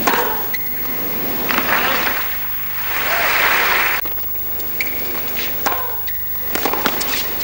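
Crowd applauding, loudest from about one and a half to four seconds in and cut off suddenly. Sharp pops of a tennis ball struck by rackets come just before the applause and again in the last couple of seconds.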